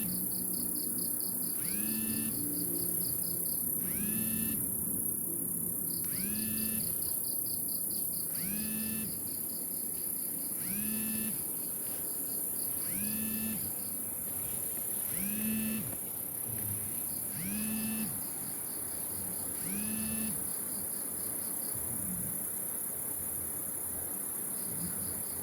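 Night insect chorus: a steady high hiss with a cricket trilling in stretches. Under it, a short low call repeats about every two seconds.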